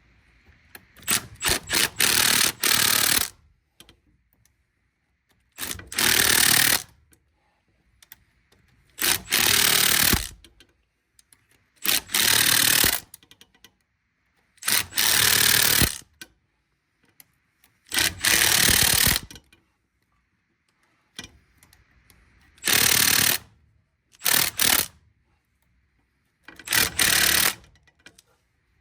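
Impact wrench running in repeated bursts of about a second each, some led by a few quick trigger blips, driving in the Loctited bolts that fasten the CV axle to the differential.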